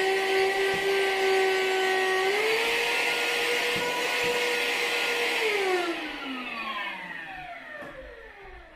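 Worx WX030 20-volt cordless handheld vacuum's motor running with a steady whine on its low setting. About two seconds in it steps up in pitch to the high setting. A little over five seconds in it is switched off and winds down with a falling whine.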